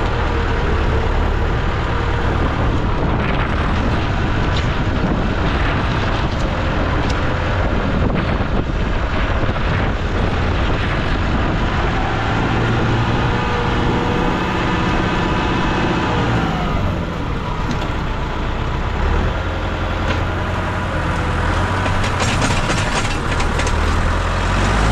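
A vehicle engine running steadily under a rush of wind noise. Its pitch dips and then rises again about two-thirds of the way through.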